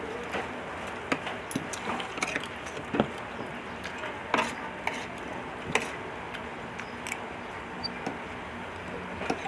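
Irregular light clinks and taps of glass and tableware, about a dozen scattered knocks over a steady background hum.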